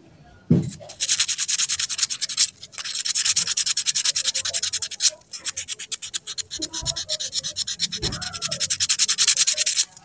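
Sandpaper rubbed rapidly back and forth on a small metal part of a gas-stove valve, a fast run of scratching strokes, several a second, that stops briefly twice. A single knock comes about half a second in, just before the sanding starts.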